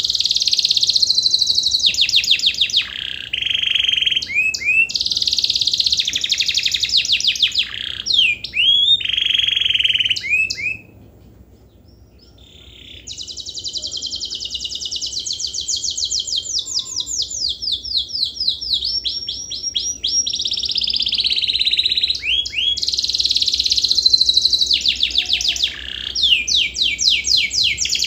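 Domestic canary in full, continuous song: long phrases of rapid trills and rolling notes, with a break of about two seconds just after ten seconds in before a long trill resumes.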